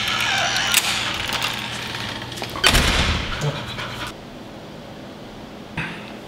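Golden retriever panting as it comes indoors, with the front door shutting in one sharp knock about two and a half seconds in.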